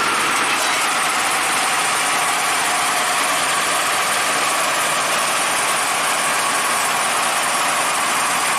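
Old Soviet ZIL truck's carbureted engine running steadily, just after being started with the hand crank.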